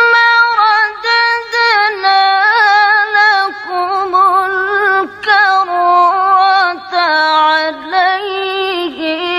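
A woman qari'ah reciting the Qur'an in melodic tilawah style: a solo voice holding long, heavily ornamented notes with quick turns and slides in pitch, with brief pauses between phrases.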